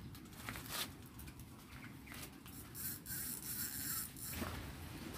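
Faint footsteps and rustling in grass and bushes, with scattered light clicks and scuffs.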